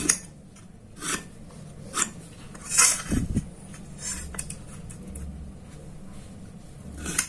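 Light metal clinks and short scrapes about a second apart: a steel try square being shifted and set on square steel tubing, and a marking tool scratching lines across the steel. One dull thump about three seconds in.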